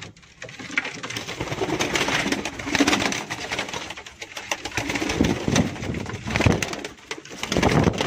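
Domestic pigeons cooing in a small loft, with rustling and scuffling noise throughout.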